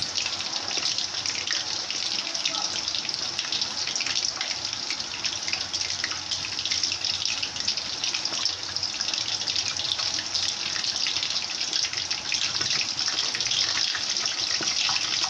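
Breaded chicken nuggets deep-frying in hot oil: a steady sizzle with many small crackles and pops.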